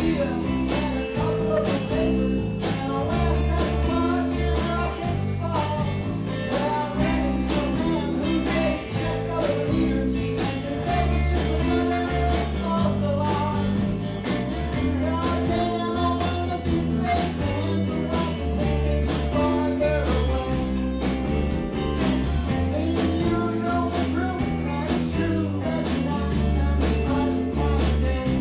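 Live rock band playing a song: drums keeping a steady beat, bass guitar, electric guitars and a singing voice.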